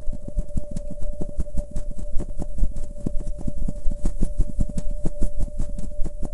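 Rapid, irregular flapping clicks, about six a second, from a wing-flap sound effect. They sit over a steady low drone of heavily slowed music.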